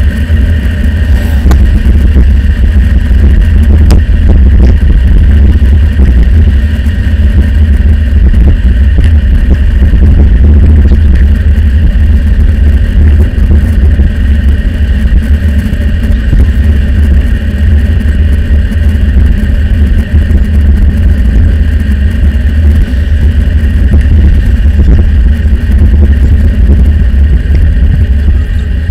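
Wind buffeting the microphone of a handlebar-mounted camera on a moving bicycle: a loud, steady low rumble, with a fainter steady higher hum above it.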